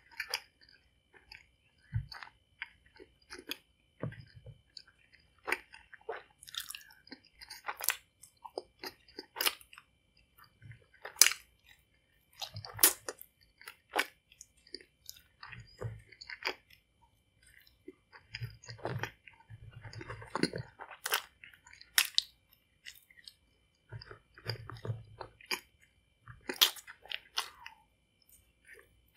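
Close-up chewing of sour gummy worms (Crawlers): sticky, wet mouth smacks and clicks at an uneven pace, with occasional low thumps.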